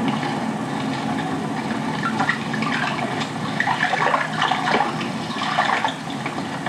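Water splashing and sloshing as hands move in a small garden pond, with scattered small splashes.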